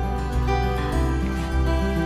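Instrumental background music, with held notes over a low bass line that changes about every half second.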